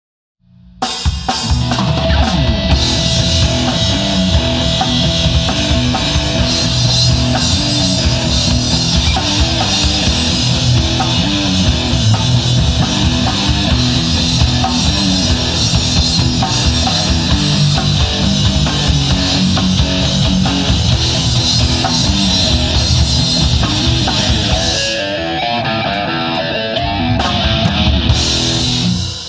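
Rock band playing loudly: electric guitars with a driving drum kit. It kicks in abruptly about a second in. The cymbals drop out for a few seconds near the end before the music stops.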